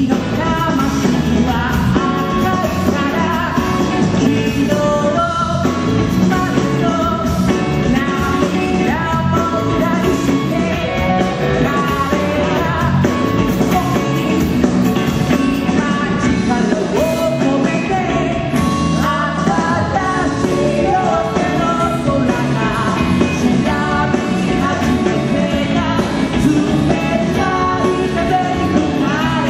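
Rock band playing live: a male lead singer sings over drums, electric bass and guitar.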